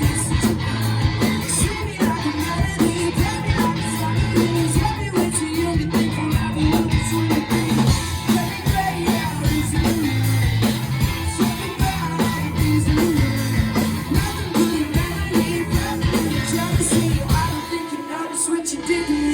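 Live rock band playing a song: drums, bass and electric guitar with singing over them. Near the end the bass and kick drum drop out for a moment before coming back in.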